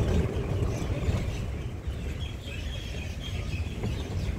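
Steady low rumble of an open passenger cart rolling along a paved path, with wind buffeting the microphone. Faint bird chirps come in from about halfway through.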